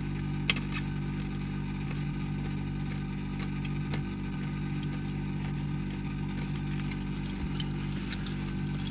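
Steady low hum of a vehicle engine idling, with a steady high hiss over it and a single faint click about half a second in.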